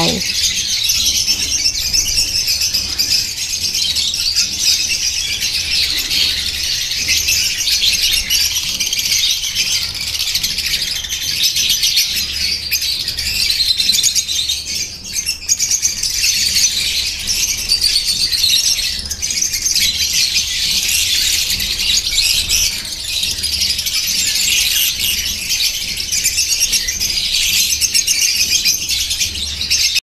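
Many lovebirds chattering and chirping together without pause, a dense high-pitched twittering.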